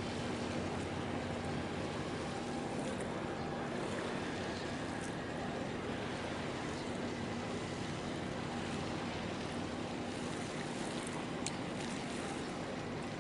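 Steady low hum of ship engines under an even wash of wind and water noise, with a few faint ticks.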